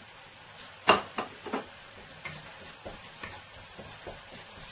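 Wooden spatula knocking three times in quick succession about a second in as chopped red pepper is pushed into a wok, then onion and garlic sizzling in oil with light scraping and ticks as they are stirred.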